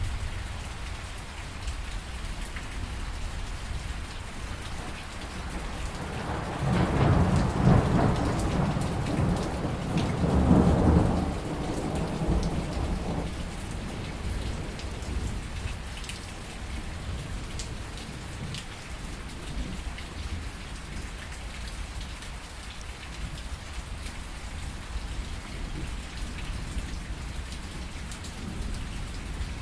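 Steady rain falling during a thunderstorm, with a long rolling rumble of thunder that swells about six seconds in, peaks twice, and dies away by about thirteen seconds.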